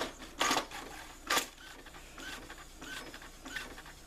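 Brother inkjet printer starting a print-quality check page after a black-ink head cleaning. Two loud mechanical swishes come in the first second and a half, followed by quieter intermittent whirring and clicking of the printing mechanism.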